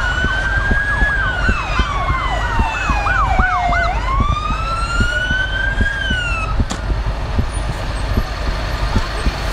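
Emergency vehicle sirens: one slow wail gliding up and down, with a second, faster yelping siren over it for the first four seconds. Both cut off about two-thirds of the way through, leaving a steady low rumble.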